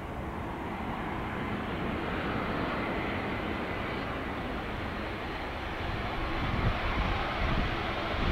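Boeing 787-10 airliner approaching to land, its jet engines running with a steady hiss and rumble that slowly grows louder as it nears.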